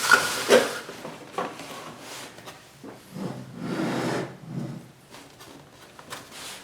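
Cardboard camera box being opened by hand: a few light knocks in the first second and a half, then a longer rubbing, scraping sound around the middle.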